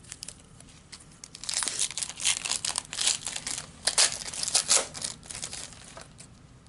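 Foil wrapper of a Panini Prizm trading card pack being torn open and crinkled: a run of crackly crinkling and tearing that starts about a second and a half in and dies away about six seconds in.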